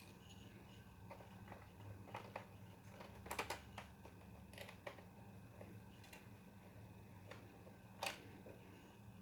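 Faint, scattered clicks and taps of small laptop parts being handled and fitted while the laptop is reassembled, a few in quick succession about three seconds in and a sharper single click about eight seconds in, over a low steady hum.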